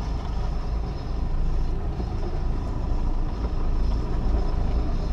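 Steady low rumble of a sportfishing boat's engine running.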